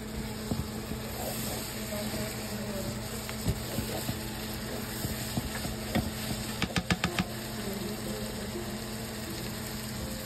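A plastic spoon stirring tofu and vegetables in a nonstick pan, knocking and scraping against the pan now and then, with a quick run of five or six taps about two-thirds of the way through, over a steady low hum.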